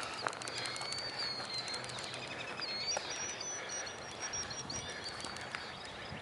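Small birds calling outdoors: thin, high, wavering notes and a few short chirps over a steady outdoor background.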